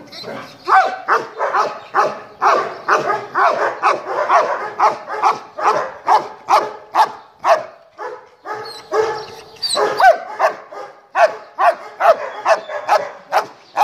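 Sable German Shepherd dog barking over and over in a steady run, about two barks a second, with a brief lull a little past the middle.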